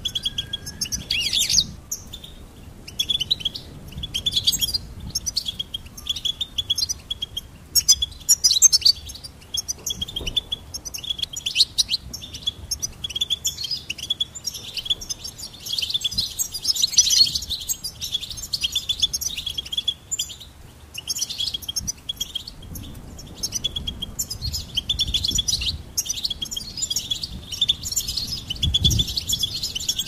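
European goldfinch singing: a fast twittering song of short, rapid chirps and trills with brief pauses, denser and fuller in the middle and again toward the end.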